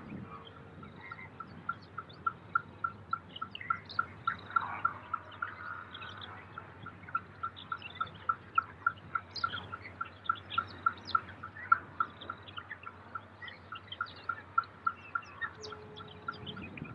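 Birds calling, one repeating a short single note about three times a second without a break, with other scattered chirps over it.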